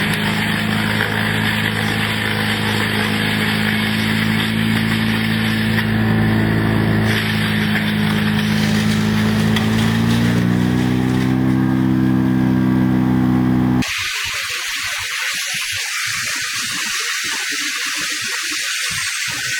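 A heavy machine's engine runs steadily, then its pitch climbs as it revs up. About two-thirds of the way through it cuts off abruptly and gives way to a steady hiss.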